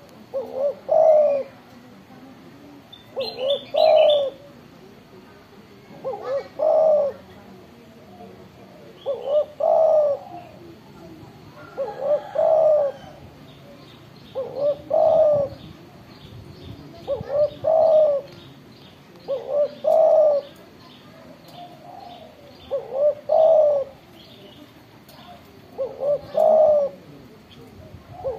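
Spotted dove cooing its song, a short phrase of a few notes repeated about every three seconds, ten times. Small birds chirp faintly now and then.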